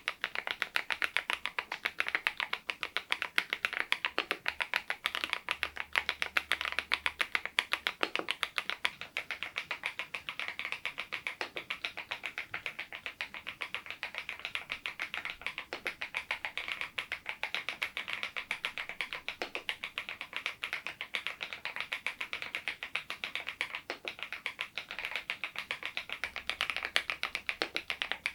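Continuous fast typing on an SPM PL108W full-size mechanical keyboard fitted with Baby White switches: a dense, steady run of keystroke clicks.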